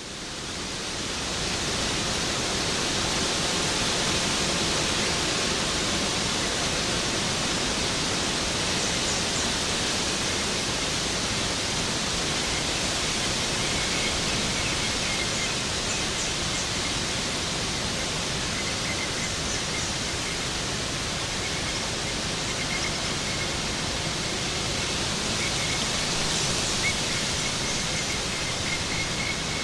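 Waterfall rushing steadily, a dense even roar of falling water that fades in over the first second or two.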